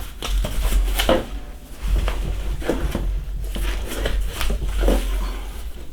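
Cardboard record mailer and packaging being handled: a run of rustling, scraping and light knocks, with low rumbling bumps underneath, as records are worked out of the box.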